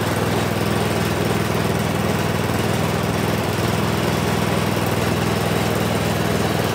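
Toro 824 snowblower engine running steadily on its first run, a brand-new machine.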